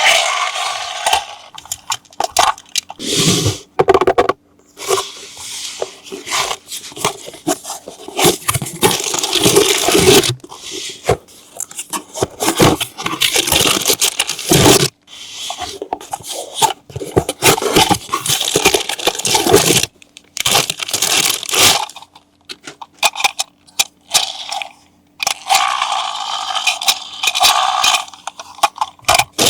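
Toy packaging being handled and opened: plastic and cardboard scraping, tearing and crunching in irregular bursts with short pauses.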